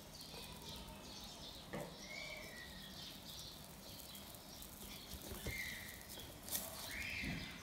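Faint bird chirps, three short calls, with a few light clicks of the metal tongs and wooden spatula on the pan.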